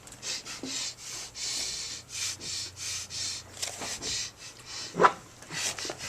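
A person breathing hard in quick, rhythmic, hissing breaths, about two a second, with one loud, sharp sound about five seconds in, as she strains to cough up objects.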